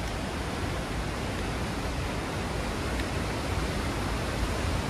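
Steady, even rushing of a mountain river in the gorge below.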